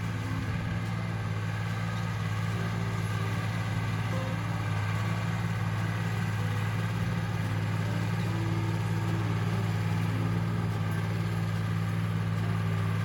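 Tractor engine running at a steady speed, a constant low drone with no change in pitch.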